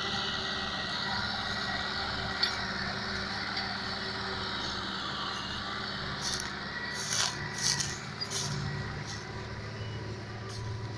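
Fiat 640 tractor's diesel engine running steadily as it pulls a trolley heavily loaded with sugarcane. A cluster of sharp clicks and rattles comes about two-thirds of the way through.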